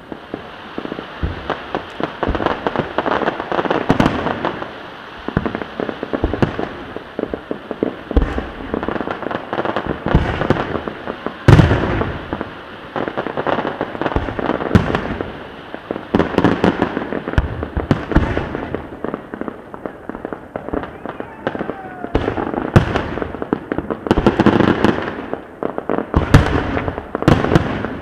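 Aerial fireworks display: a dense, continuous run of bangs from bursting shells over steady crackling, with the heaviest booms about 11 seconds in and twice more after 22 seconds.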